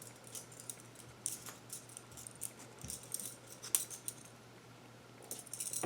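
Keys on a key bar jingling and clinking faintly as they are handled, in a few scattered short clinks with a busier cluster near the end.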